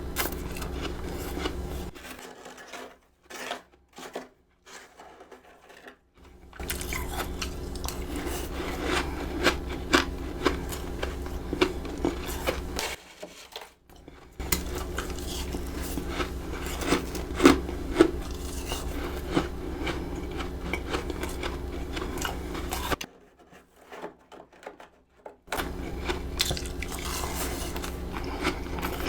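Close-miked biting and chewing of freezer frost: many crisp crunches in quick, uneven succession over a steady low hum. The hum and the crunching drop out three times for a few seconds.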